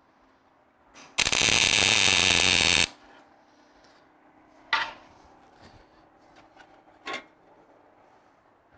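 A welder strikes a tack weld on the steel bumper, a loud steady crackling buzz of about a second and a half that cuts off sharply. Two sharp metal knocks follow a few seconds apart.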